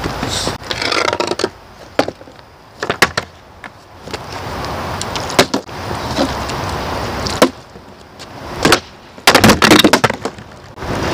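Knocks and clatter of a skateboard and a plastic water bottle on asphalt, with a loud burst of clattering a little past nine seconds in as the board is kicked up and the bottle flies off it. A steady rush of wind on the microphone fills the middle stretch.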